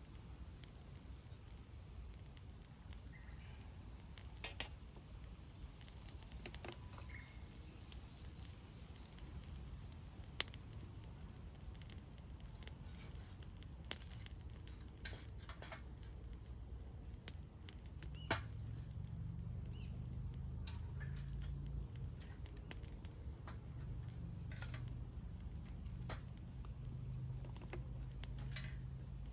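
Wood fire burning in a campfire stand, with scattered sharp crackles and pops from the burning wood. A low rumble comes up about two-thirds of the way through.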